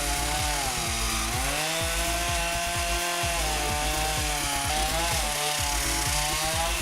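Ryobi chainsaw running and cutting wood, its motor pitch sagging as the chain bites into the cut and climbing back as it frees up.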